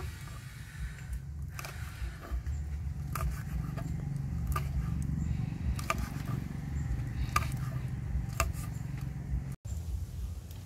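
Kitchen knife slicing fresh red chilies on a wooden chopping board: a series of sharp taps of the blade meeting the wood, about seven of them, roughly a second apart, over a steady low rumble.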